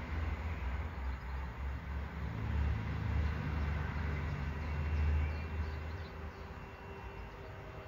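Wind buffeting the microphone with a gusty low rumble. Behind it, a passenger train can be heard approaching in the distance as a faint thin tone that grows clearer toward the end.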